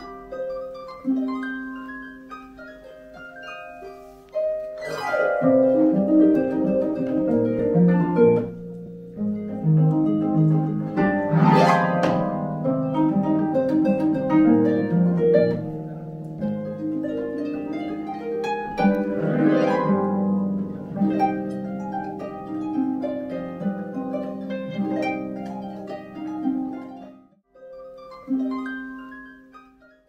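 Solo concert pedal harp playing plucked notes and chords, with three loud sweeping flourishes across the strings. The music breaks off near the end, then a last chord rings and dies away.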